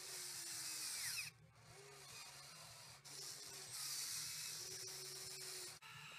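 Radio-controlled hydraulic excavator's pump and valves whining as the boom and bucket move, in two louder spells, the first in the opening second and the second from about four seconds in, with the pitch shifting as the load changes. The sound cuts off abruptly near the end.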